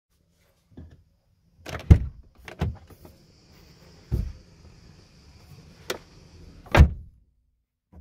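Volvo XC90 rear door being worked from the inside: the inside handle pulled and the door latch and door clunking, several sharp knocks, the loudest about two seconds in and near the end, with a faint high whine in the middle. This is the test of the repaired inside opening mechanism.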